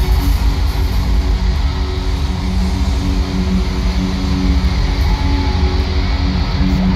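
Live rock band playing loud: electric guitar over drums and bass, with a heavy, boomy low end.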